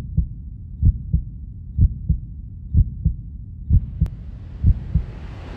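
Heartbeat sound effect: low double thumps (lub-dub) repeating a little under once a second. About two-thirds of the way in, a rushing hiss fades in under the beat and grows louder.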